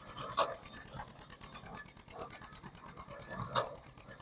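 Antique stationary baler, belt-driven from a steam engine, running while it bales straw: a steady, fast, even mechanical clatter, with two louder moments about half a second in and near the end.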